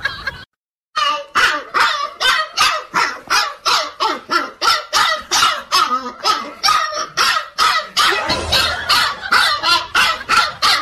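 Husky puppy barking over and over in a quick, even rhythm, about three barks a second, starting about a second in after a brief silence.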